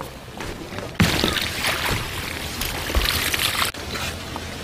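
Water splashing and dripping from a landing net as freshly caught cuttlefish are scooped up and drained over a tray. The splashing starts suddenly about a second in and drops away near the end.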